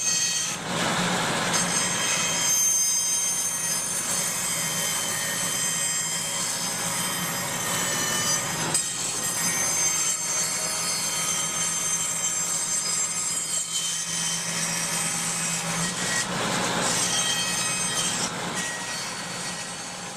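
A power tool cutting wood: a steady machine noise with several high whines held throughout, briefly dropping about half a second in and again near the middle.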